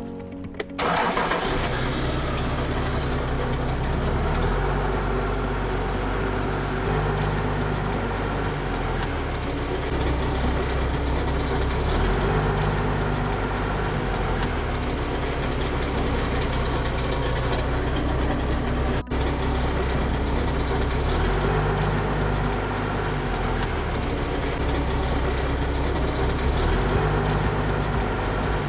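A motor vehicle's engine running close by, starting abruptly about a second in, its low engine note shifting every few seconds, with a brief cut-out about two-thirds of the way through.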